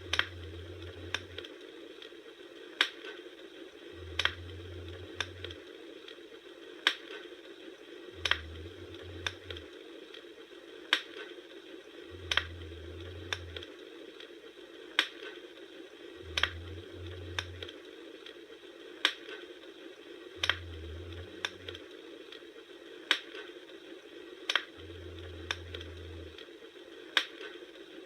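Campfire crackling: sharp wood pops over a steady hiss, the loudest pops falling about every four seconds, with a low hum that comes and goes on the same beat.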